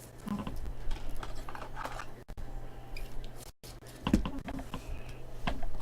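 Light clicks and rustling of trading cards and their packaging being handled.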